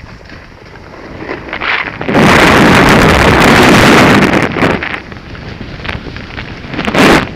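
Wind buffeting the camera's microphone during a ski run: a loud rushing gust from about two to four and a half seconds in and another short one near the end, with softer rushing between.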